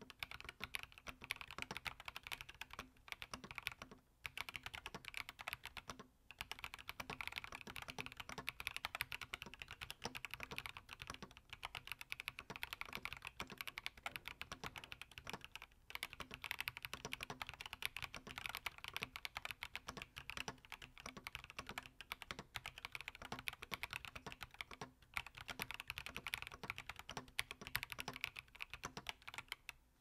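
Typing on a Yunzii Keynovo IF98 gasket-mounted 98% mechanical keyboard with its stock custom linear switches and no mods: a fast, continuous clatter of keystrokes, broken by a few short pauses.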